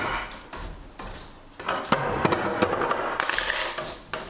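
Footsteps coming down a wooden staircase: a series of knocks, closer and louder in the second half.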